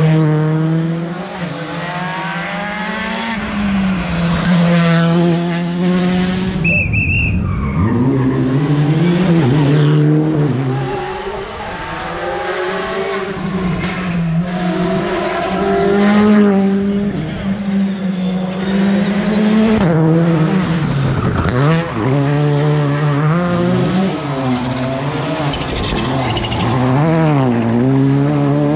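Rally cars at speed on a tarmac special stage, engines revving hard with the pitch climbing and dropping again and again through gear changes, cars passing one after another, with tyre squeal in the corners. A short high whistle sounds about seven seconds in.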